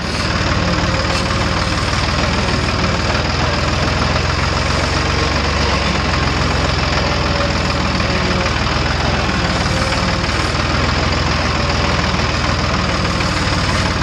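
Old Ford diesel tractor engine running steadily while the tractor drives along at an even throttle.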